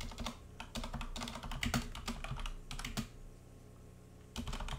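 Computer keyboard typing: a quick run of key clicks, a pause of about a second and a half, then more keystrokes near the end.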